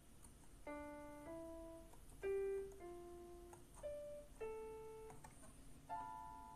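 Yamaha SHS-300 Sonogenic keytar playing its piano voice through its small built-in speaker: about seven single notes played one after another, each held for about half a second, stepping up and down in pitch.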